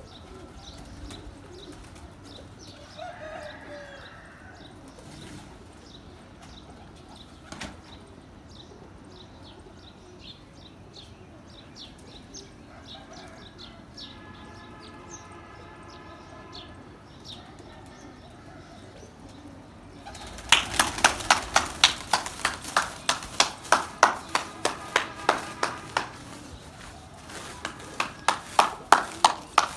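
Domestic pigeons cooing and fluttering in a quiet yard. About twenty seconds in, a fast, loud run of sharp claps begins, two or three a second; it stops briefly and starts again near the end.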